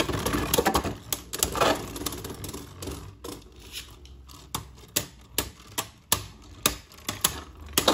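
Two Hasbro Beyblade Burst spinning tops battling in a plastic stadium, with a whirring hiss and repeated sharp, irregular clacks as they collide. The clacks are thickest and loudest at the start and thin out as the tops slow.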